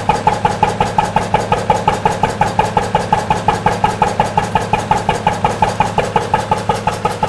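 Exhaust of a 1951 Lister diesel engine running steadily on waste vegetable oil, puffing out of a long length of water pipe used as a silencer: an even beat of about six puffs a second.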